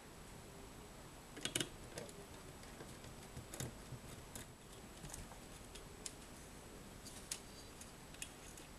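Faint, irregular clicks and light taps of small metal parts being handled on a cassette tape mechanism as its magnetic playback head is taken off.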